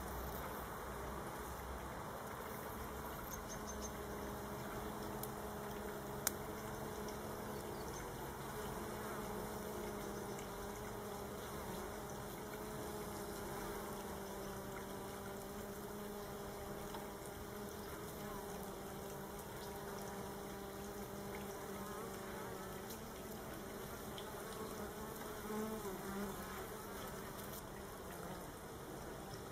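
Honeybees buzzing at a hive entrance: a steady, slightly wavering hum of workers flying in and out in calm, steady traffic. A single brief click about six seconds in.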